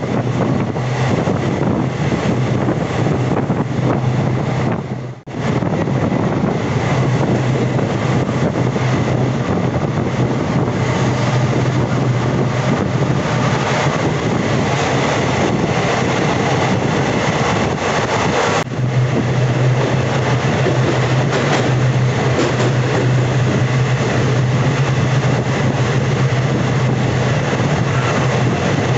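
Passenger express train running: a steady rumble of coach wheels on the rails with a low hum underneath. The sound drops out for a moment about five seconds in and then continues.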